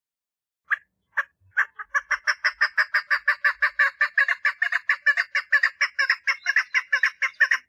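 Female chukar partridge giving its mating call: two spaced clucking notes, then a fast, even run of sharp clucks at about six a second that stops just before the end.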